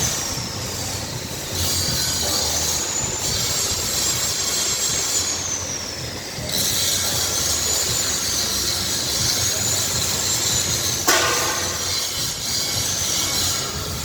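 A high-pitched machine whine that rises, holds and falls in pitch four times, over a steady mechanical hum, with one sharp click about eleven seconds in.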